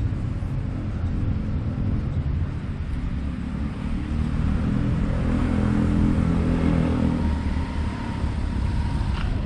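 Road traffic: a motor vehicle's engine running close by over a steady low rumble, loudest past the middle. A faint steady whine follows and cuts off with a short click near the end.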